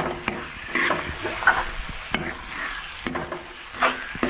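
Metal ladle stirring and scraping mashed roasted eggplant (baingan bharta) around a steel kadhai while the food sizzles in the hot pan. The scrapes come irregularly, about one a second.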